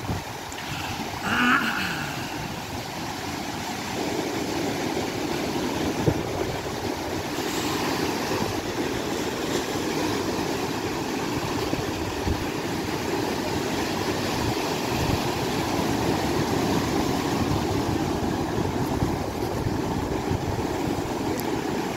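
Ocean surf breaking and washing up the beach: a steady rushing of waves that grows louder about four seconds in.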